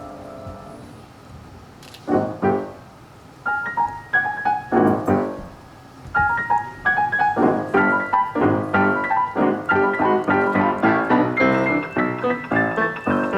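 Piano playing: a chord dies away, a few chords are struck about two seconds in, a short phrase follows, and after a brief pause about six seconds in it moves into a steady run of quick notes.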